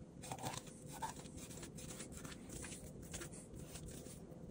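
Faint, irregular clicks and scrapes of a knife scoring a whole snapper on a cutting board.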